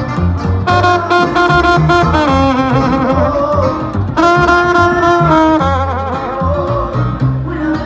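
Live band playing an instrumental passage: an upright bass (tololoche) plucked in a steady bass line under a lead melody of long held notes.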